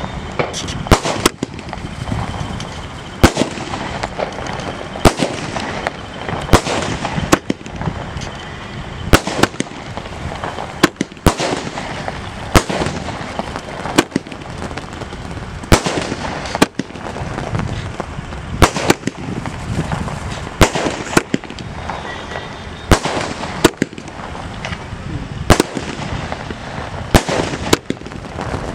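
500-shot aerial firework cake firing in sequence: sharp bangs at an irregular pace of roughly one a second, over continuous crackling from the bursting stars.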